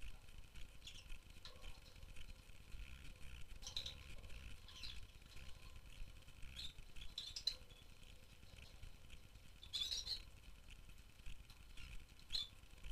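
Rosy-faced lovebirds giving scattered short, high chirps and calls, with one louder call about ten seconds in.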